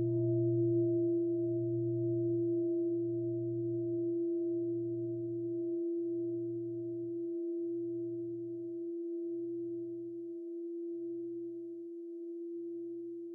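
A large bell or bowl ringing out after being struck, its sustained tones slowly fading, with a low hum that pulses and slows as it decays.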